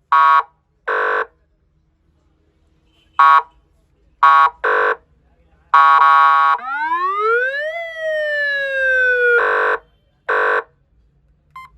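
Electronic car police siren being tested: a string of short horn-like blasts, some in quick pairs, then a single wail that rises for about a second and falls back over about a second and a half, then two more blasts.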